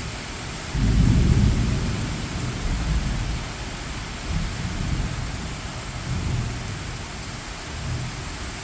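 Steady rain with rolling thunder: a deep rumble breaks in about a second in, is loudest at first, then rolls on in weaker waves as it dies away.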